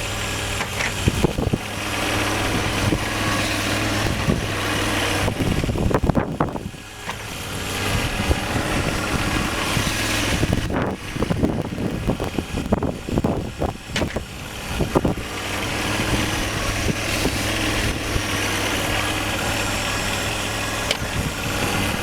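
John Deere 1025R compact tractor's three-cylinder diesel engine running steadily, with a run of sharp knocks and changes in level from about ten to fifteen seconds in.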